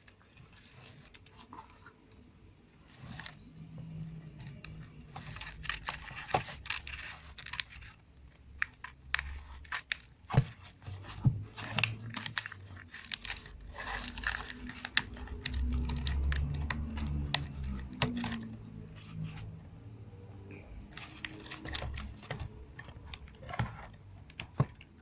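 Packaging around a RAM memory module being cut and torn open by hand: irregular crinkling and tearing with many sharp clicks and snaps, busiest in the middle.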